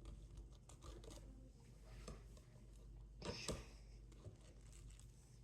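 Quiet kitchen handling sounds: faint light scrapes and ticks, with a brief louder scrape or clatter about three and a half seconds in.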